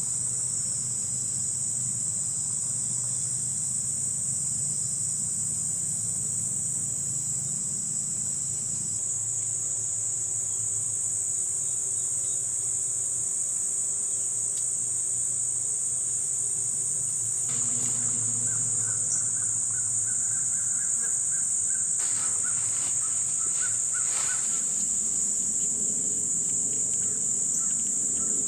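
Steady high-pitched chorus of evening insects, with a few short crow caws in the second half.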